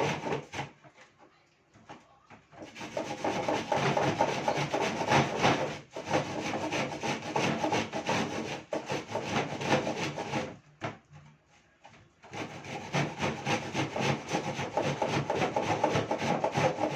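An onion being grated by hand on a grater fitted with a catch container, in quick rasping strokes that rattle the container. The grating stops twice, for about two seconds about a second in and for about a second and a half about ten seconds in.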